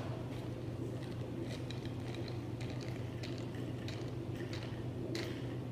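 Two people chugging beer straight from glass bottles: faint scattered gulps and glugs over a steady low hum.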